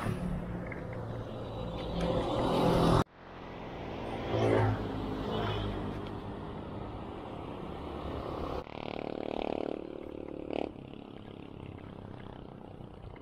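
Wind and road noise on the microphone of a moving two-wheeler, with the engine of a passing motor vehicle rising and falling in pitch around the middle. The sound cuts off abruptly twice, at about three seconds and near nine seconds, and another engine note is heard after the second cut.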